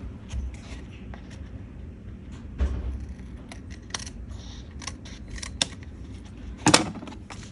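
Scissors snipping at the edges of laminated paper cards, trimming away excess laminating film: scattered short snips, with one louder clack near the end.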